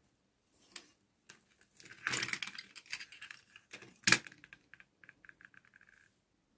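Close-up handling of small plastic toy pieces and packaging: scattered clicks, a rustle about two seconds in, a sharp tap about four seconds in, then a quick run of small ticks near the end.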